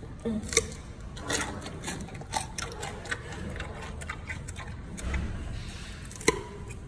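Giant panda crunching a chunk of raw carrot: irregular crisp crunches and clicks, with one sharper crack about six seconds in.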